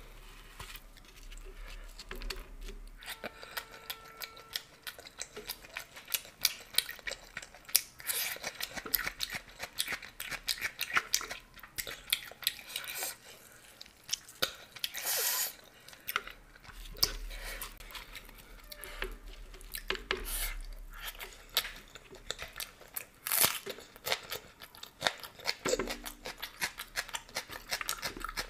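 Close-miked eating sounds: a person chewing and crunching fried dal kachori with spicy ghugni, with many irregular wet clicks and a few louder crunches.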